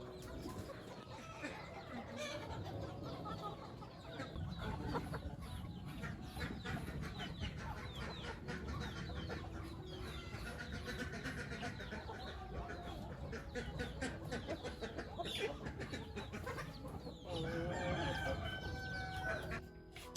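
A flock of free-range chickens clucking continuously, many birds at once, with a rooster crowing near the end.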